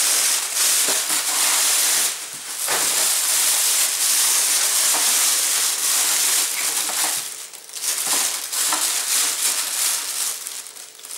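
Thin plastic bag crinkling and rustling loudly as it is pulled and torn open, with brief pauses about two and a half and seven and a half seconds in, and softer near the end.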